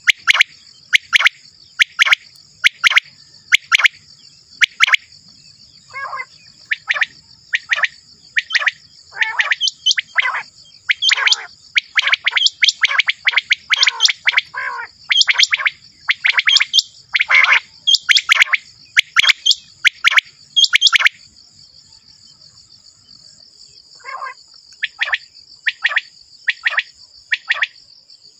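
Common quail calling: short, sharp notes that drop quickly in pitch, repeated in quick runs with a pause of a few seconds past the middle. A steady high insect-like hiss runs underneath until about two-thirds of the way through.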